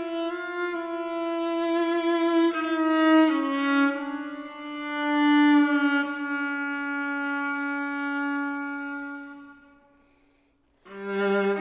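Solo viola playing slow, long bowed notes. The held note steps down a little about three seconds in and swells midway. It fades away to near silence about ten seconds in, and a new, lower note enters just before the end.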